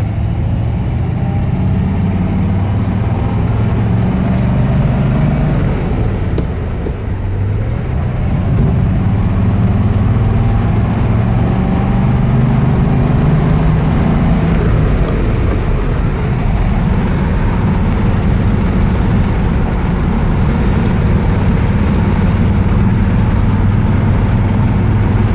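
1956 Ford Thunderbird's 312 V8 running under way, heard from inside the car with road noise. The engine eases off about six seconds in, then pulls again and holds steady.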